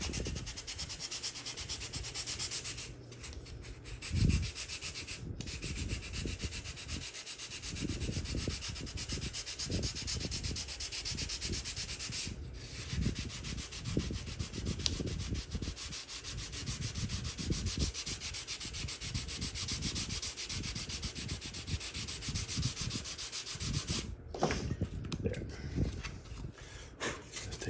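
Sandpaper on a hand sanding block rubbed quickly back and forth over balsa wood, taking a glued-on balsa repair patch down flush with the surface. The strokes run steadily with a few brief pauses, and there is a dull knock about four seconds in.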